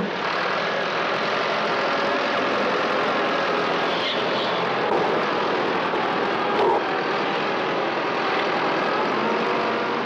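Ford 7710 tractor's diesel engine running steadily while pulling a plough.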